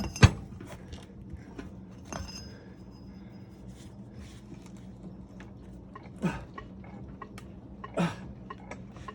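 Bench vise and pipe lever under heavy strain as a knife is forced over. There is a sharp metal clank just after the start and a ringing metallic tick about two seconds in. Later come a few short sounds falling in pitch, as the vise works loose in its mounting.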